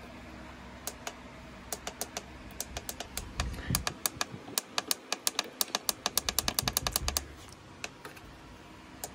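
Plastic buttons on an M15 Bluetooth speaker's control panel being clicked. The presses are scattered at first, then come in a quick run of about four or five a second for several seconds, with a few soft handling bumps.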